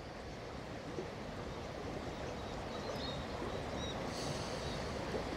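Creek water flowing steadily over rocks, with a few high bird chirps coming in during the second half.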